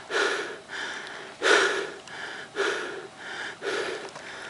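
A person breathing hard close to the microphone, out of breath after a steep hike: quick noisy breaths in and out, just under two a second, alternating louder and softer.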